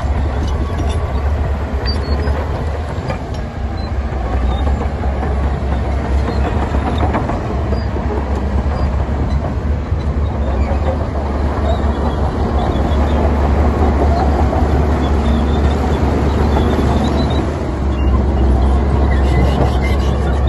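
Heavy diesel earthmoving machinery working: a loud, steady low engine rumble under a dense mechanical clatter.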